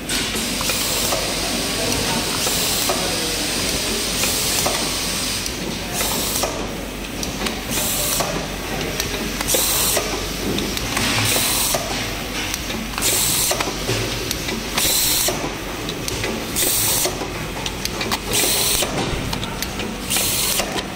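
Automatic rotary ice-cream cup filling machine running: a steady mechanical clatter, with a short hiss of compressed air about every two seconds as its pneumatic cylinders cycle.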